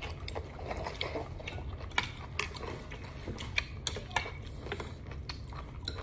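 Chopsticks and a metal spoon clicking now and then against a ceramic bowl as noodles are stirred and lifted, with quiet chewing. A steady low hum runs underneath.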